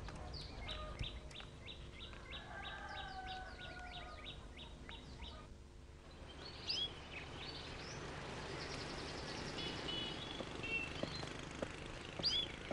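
Small birds chirping faintly: a quick, even run of repeated chirps for about five seconds that cuts off abruptly, then scattered chirps and short trills from caged songbirds.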